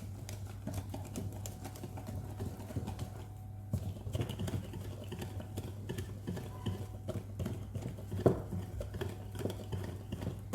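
A utensil stirring thick cake batter in a bowl: irregular light clicks and taps against the bowl over a steady low hum.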